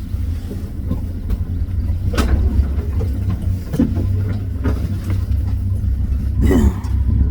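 Safari vehicle's engine running with a steady low rumble, with a few short, faint sounds over it.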